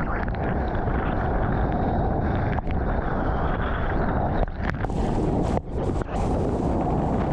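Rushing water and wind buffeting a GoPro's microphone as the surfboard moves through the spray of a wave. The roar is steady and drops out briefly a few times.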